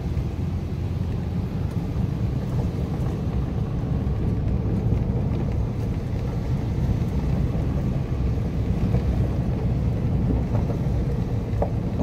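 Steady low rumble of a car driving slowly on an unpaved dirt road, heard from inside the cabin: engine running with tyre noise from the dirt surface.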